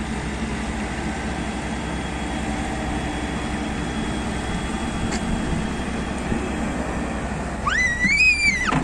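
Excavator's diesel engine running steadily. Near the end a high cry rises and then falls for about a second.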